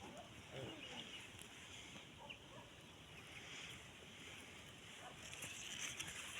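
Faint short calls of farm fowl, several scattered over a few seconds against a quiet background.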